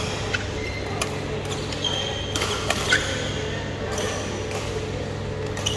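Badminton rackets hitting a shuttlecock during a doubles rally: several sharp hits spaced about a second apart, with short squeaks of shoes on the court floor. A steady low hum runs underneath.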